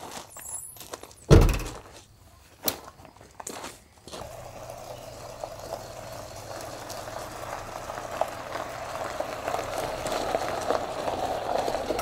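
A vehicle's rear door shut with one heavy thump, followed by a few lighter clicks and knocks. Then a small 4x4's engine running and its tyres crunching over gravel as it drives past, growing louder toward the end.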